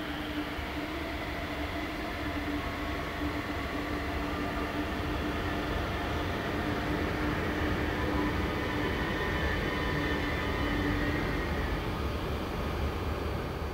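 A distant train on the electrified line, heard as a steady rumble with a steady low hum and faint higher whines. The sound swells a little, and the hum stops about eleven seconds in.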